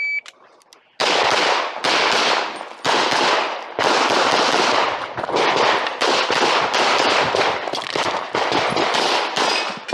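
Shot timer beep right at the start. About a second later, rapid semi-automatic pistol fire begins: string after string of shots, many in quick pairs, each followed by a short echo, running to the end.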